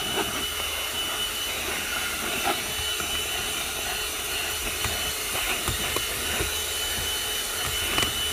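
AGARO CV1077 handheld car vacuum cleaner running steadily, a high motor whine over a rushing hiss of air, as its nozzle works over a car floor mat; a few faint ticks come through the steady noise.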